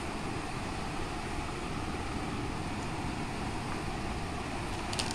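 Steady rushing noise with a deep rumble, like air buffeting the microphone, with a couple of light clicks near the end as a stainless steel mixer jar is handled.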